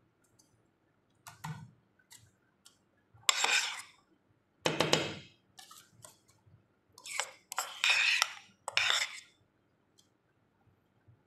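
A utensil scraping against a foil-lined baking tray as thick sauce is spread over chicken, in about seven short scrapes that come closer together in the second half.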